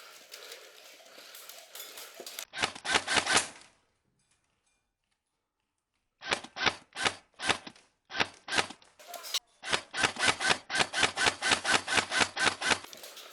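An airsoft gun firing rapid, repeated single shots close to the microphone as sharp clicks. A short string of about six comes a couple of seconds in, then a pause, then a long run of shots at about four a second.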